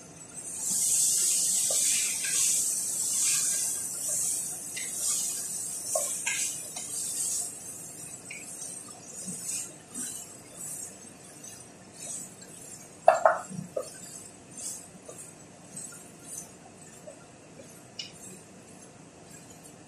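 Ingredients sizzling in a hot pot, loud for the first several seconds and then dying down, while a wooden spoon scrapes and clinks against the pot. A single sharp knock comes about two-thirds of the way through.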